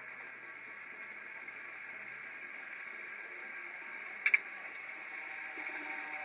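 Chicken breast sizzling in a nonstick frying pan with no added oil, a steady crackling hiss. Two sharp clicks come about four seconds in. From about five and a half seconds the sizzle grows slightly louder as a second piece of breast is added to the pan.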